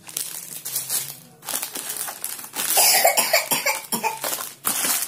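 Clear plastic jewellery packet being crinkled and handled, an irregular crackly rustling that is densest and loudest about three seconds in.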